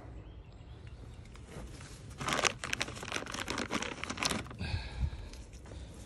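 Low steady hum from a Lennox AC condenser unit whose fan is not spinning, its condenser fan motor seized. About two seconds in comes a couple of seconds of crackling, rustling clicks, and near the end a single dull thump.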